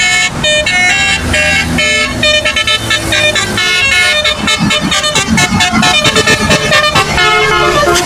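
A QQ Trans bus's multi-trumpet 'telolet' (basuri) musical horn plays a rapid run of high notes, one after another like a tune. Bus engine and road traffic noise run underneath.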